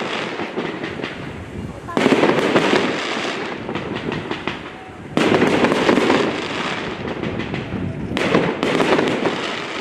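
Fireworks display: three large aerial bursts about three seconds apart, each a sudden bang followed by a fading crackle.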